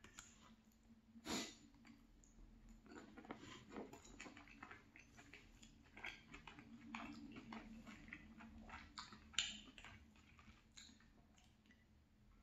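Close-miked chewing of chicken and vegetable stir fry, soft crunching and wet mouth clicks, with a couple of sharper clicks about a second and a half in and near the end.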